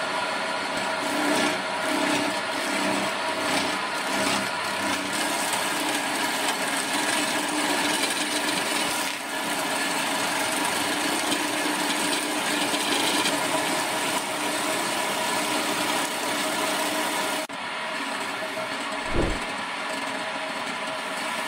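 Electric motor of a homemade wood lathe running steadily, with a hand chisel cutting and scraping a spinning wooden blank. There is a short low thump near the end.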